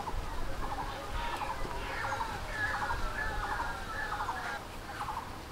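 Chickens clucking in a run of short, repeated calls.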